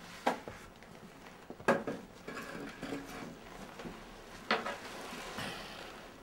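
Small objects being handled and set down on a table: three sharp knocks, the loudest a little under two seconds in, with lighter clinks and clatter between them, like crockery or cutlery.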